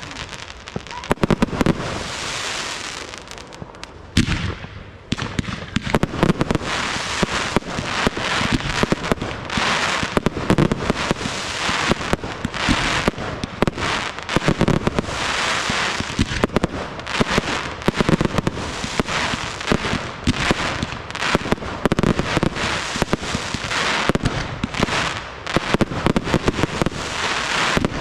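Fireworks display: rapid, near-continuous bangs of aerial shells being launched and bursting, mixed with crackle. There is a brief lull about four seconds in before the firing picks up again.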